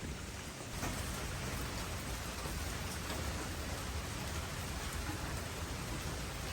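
Steady rain falling, with scattered individual drops ticking on a surface; it grows a little louder about a second in.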